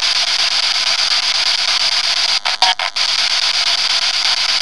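Spirit box (radio-sweep ghost box) static: a steady, loud hiss that cuts out in a few quick gaps about two and a half seconds in.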